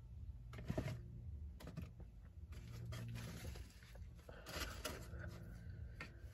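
Faint eating sounds: quiet chewing and mouth noises with small clicks, and a paper napkin rustling against the mouth, over a low steady hum.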